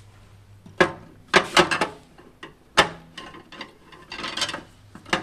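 Screwdriver and hands clicking and knocking on a submersible-pump starter's casing as its screws are undone, in irregular short clicks with small clusters about a second and a half in and again around four seconds.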